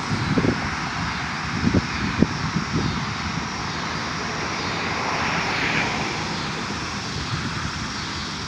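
Outdoor wind: gusts buffet the microphone with low thumps for the first few seconds, over a steady rushing noise that swells briefly a little past the middle.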